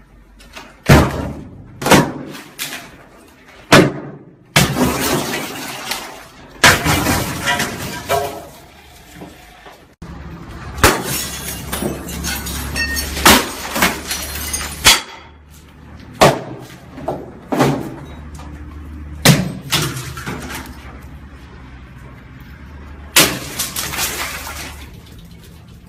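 A hammer smashing glass: well over a dozen sharp, separate blows, several followed by the crash of glass breaking and falling.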